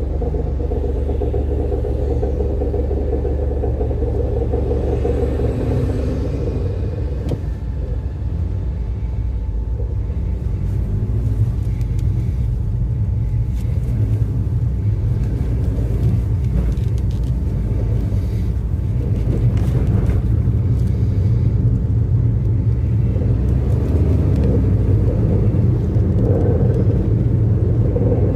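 Toyota Pixis Mega kei car running, a steady low rumble with a mid-pitched hum that fades after about six seconds and returns near the end.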